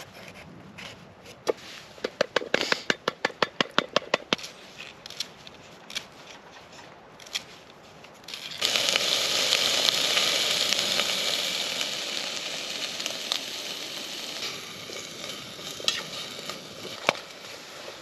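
A quick run of sharp taps, then about eight and a half seconds in a sudden sizzle as vegetables go into a hot pan, loud at first and slowly dying down as the pan cools.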